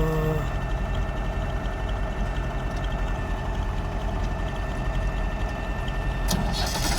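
Heavy diesel engine idling steadily, with a short pitched note right at the start.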